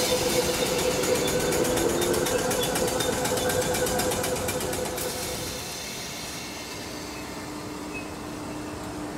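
South Western Railway Class 456 and Class 455 third-rail electric multiple units moving at the station, running with a fast, even clatter and a faint rising electrical whine. About halfway through the sound fades to a quieter steady hum.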